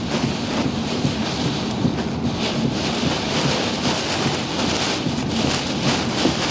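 Hurricane-force wind in Hurricane Ian's southern eyewall, a loud, steady rush that swells in repeated gusts and buffets the microphone.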